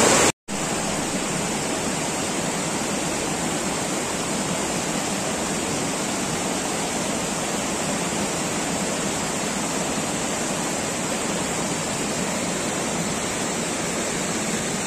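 Rushing rocky river, water tumbling over boulders and small rapids: a steady, even rush that starts abruptly about half a second in.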